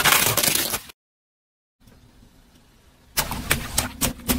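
Car tyre crushing a plastic toy excavator, a loud crunching crackle that stops after about a second. After a short dead silence, a car tyre rolls over water balloons: several sharp pops and cracks near the end, over the low hum of the car's engine.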